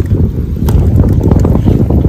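Strong wind buffeting the microphone, a loud, gusting low rumble.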